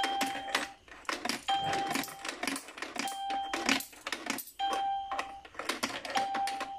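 Coins fed one at a time into a piso Wi-Fi vending machine's coin acceptor: each coin clinks as it goes in, and the machine gives a short steady beep as it credits it, five beeps about a second and a half apart.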